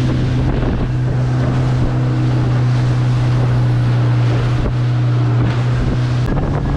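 Motorboat engine running steadily under way, a constant low drone, mixed with wind buffeting the microphone and the rush of water along the hull.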